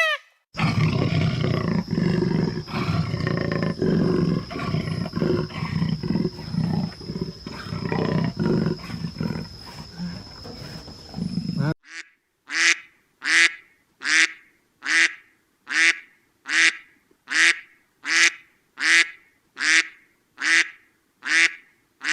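Animal grunting and growling in a dense, low-pitched jumble, then after an abrupt cut a run of short, evenly repeated pitched animal calls, about one every three-quarters of a second.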